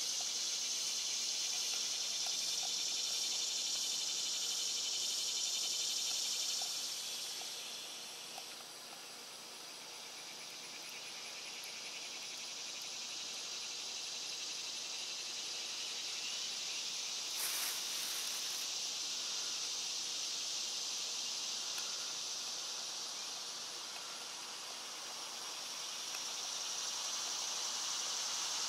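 High-pitched insect chorus, steady and pulsing, that swells and fades: loud at first, dropping away about eight seconds in, then building back up toward the end. A brief scratchy noise about seventeen seconds in.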